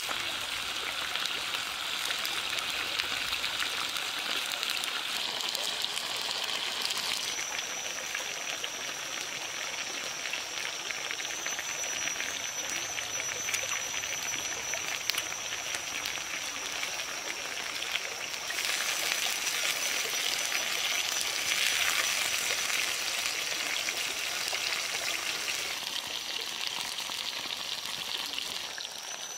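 Pork, mushrooms and vegetables sizzling in a clay pan: a steady hiss that changes in tone about seven seconds in and again a little after halfway. A thin, high, steady tone runs through the middle part.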